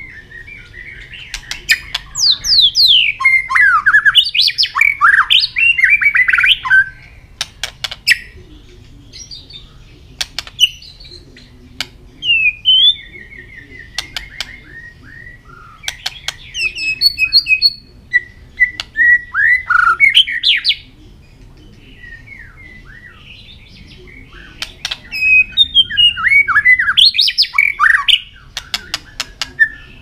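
White-rumped shama singing in four bursts of rich, rapid whistled phrases, many notes sliding downward, with sharp clicking tack notes between the phrases.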